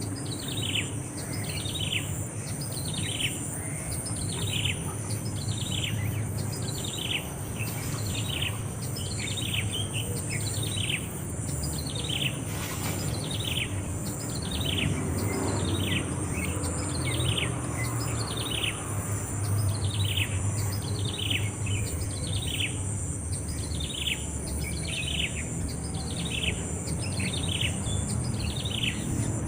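A bird calling in a long, even series of short, downward-slurred chirps, about three every two seconds, over a steady high-pitched insect drone.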